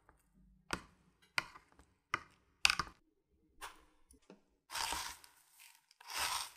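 A potato croquette being coated by hand in a plastic tray: about five short, sharp taps over the first few seconds, then two longer rustling scrapes as it is rolled in dry breadcrumbs.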